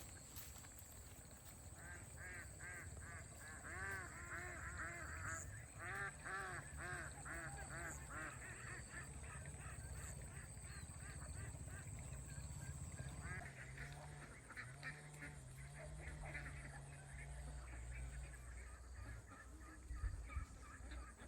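Domestic fowl calling: a run of quick, repeated honk-like calls, several a second, strongest for the first several seconds and then fainter. A low steady hum runs underneath.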